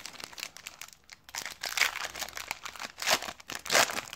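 Foil wrapper of a baseball card pack being torn open and crinkled by hand, with louder bursts of crinkling about halfway through and near the end.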